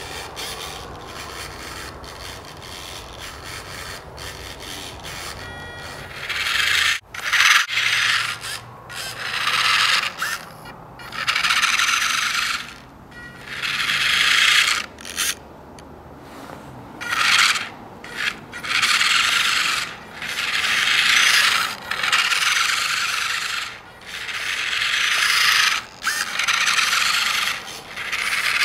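Micro 1/24 scale RC truck's small electric drivetrain whirring in a series of about a dozen short bursts, each one to two seconds long, as the throttle is pulsed on and off.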